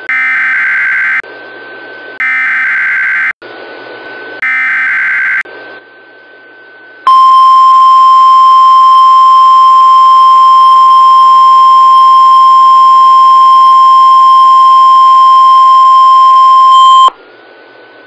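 NOAA Weather Radio Required Weekly Test received over a weather radio: three short, harsh bursts of the SAME digital header, each about a second long and a second apart, then the steady 1050 Hz warning alarm tone held for about ten seconds and cut off sharply. A low radio hiss sits underneath throughout.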